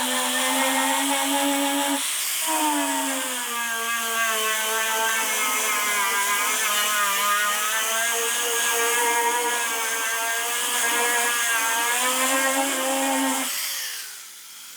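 Electric angle grinder with a paint-stripping disc cutting paint down to bare metal on a car body panel, applied with gentle pressure. Its motor whine dips in pitch under load and recovers several times. Near the end it is switched off and winds down.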